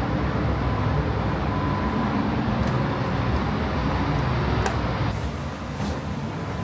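Steady low rumble of air-conditioning ventilation, with a faint steady whine above it and a few light clicks.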